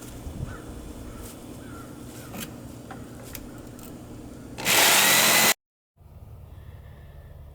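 Jigsaw running briefly, cutting off overhanging deck boards: a loud burst of motor and blade noise with a rising whine, lasting about a second, that starts near the end and stops abruptly. Before it, only low ambience with a few faint clicks.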